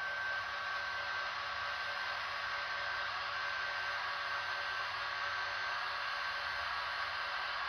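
HO-scale model electric locomotive running slowly on KATO Unitrack: a steady hiss of its motor and wheels on the rails, with a faint high whine.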